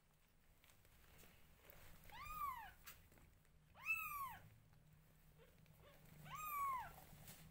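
Newborn kittens mewing: three high, thin mews, each rising then falling in pitch, about two seconds apart.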